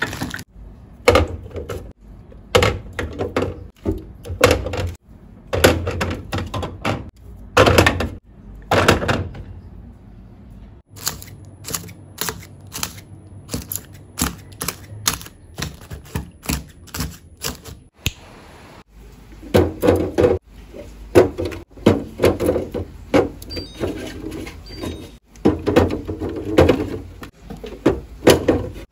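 Plastic food containers and packs being set down and shifted on refrigerator shelves: irregular knocks, clunks and light clicks, with a run of quick light clicks in the middle.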